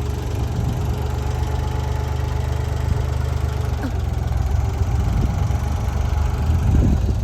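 Engine of a piece of heavy equipment with a bucket, running steadily as a low rumble and getting a little louder near the end.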